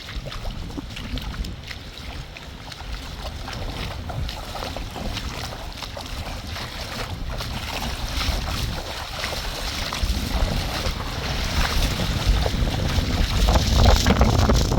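Wind buffeting the microphone over the rush and lapping of water, with small crackling noises throughout; it grows steadily louder toward the end.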